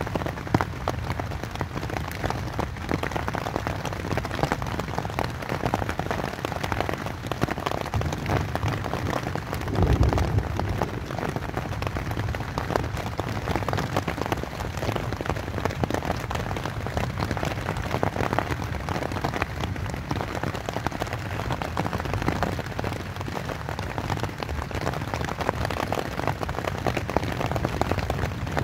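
Rain pattering steadily on a tent's fabric, a dense patter of individual drops. About ten seconds in there is a brief louder low rumble.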